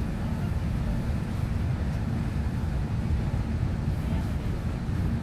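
Domestic cat purring steadily and loudly while being stroked, a low, rapidly pulsing rumble.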